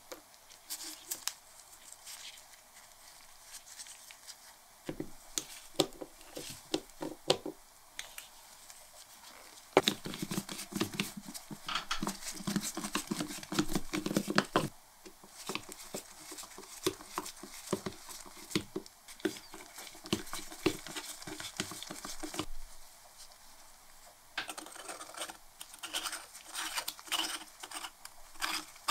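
Irregular small clicks, taps and scrapes of a screwdriver turning terminal screws on a ceramic lamp socket and of its metal parts being handled. They come thickest about a third of the way in and again near the end.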